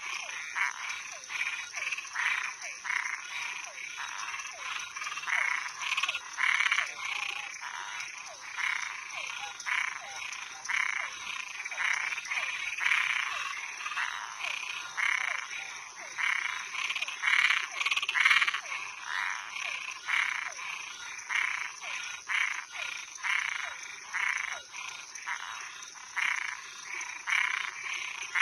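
Chorus of frogs and treefrogs calling, many short croaks repeating quickly and overlapping, over a steady high-pitched drone.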